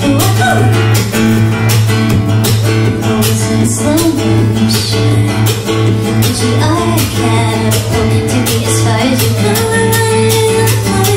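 Steel-string acoustic guitar strummed with a capo, with a woman singing over it.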